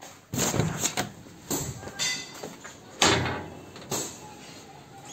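A series of knocks and clunks as a wooden door and window are handled and pushed open, the loudest about three seconds in.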